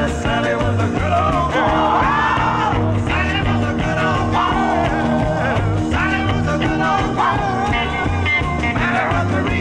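Country band music, an instrumental passage with no singing: bending melody lines over a steady bass beat.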